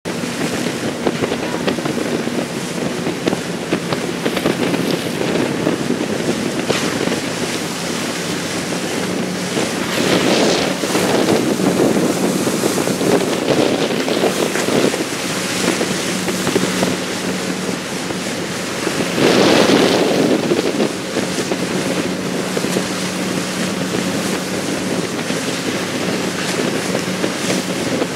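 A motor boat underway: the engine makes a steady low drone under the rush of its wake water, with wind buffeting the microphone. The water-and-wind noise swells louder for several seconds around the middle, and again briefly later.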